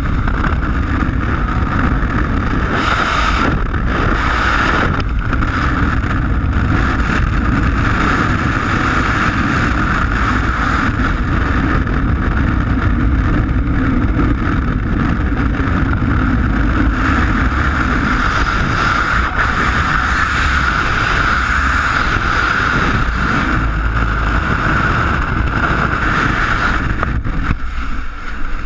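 Freefall wind rushing over a GoPro Hero 3 in its housing, a loud steady rush from falling at terminal speed. It dips briefly near the end.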